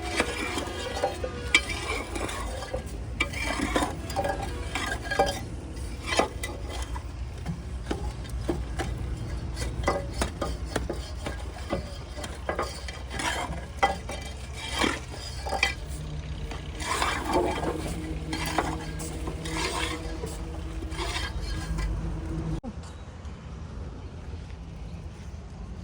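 Water spray hissing and spattering against the steel body of a Tata Hitachi EX 200 excavator during washing, with irregular clinks and knocks over a steady low rumble. A low hum that joins partway through cuts off suddenly near the end.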